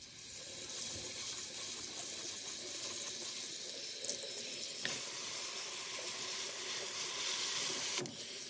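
Kitchen tap running water into a stainless steel mesh strainer of moong dal, a steady rush of water as a hand rubs and swishes the washed lentils. Two small knocks about four and five seconds in.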